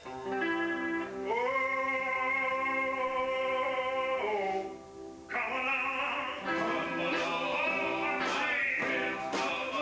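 Live gospel quartet music: a male lead singer holds a long, wavering note, breaks off briefly about halfway, then goes into another long sung phrase. Electric guitar and bass notes play underneath, with cymbal hits near the end.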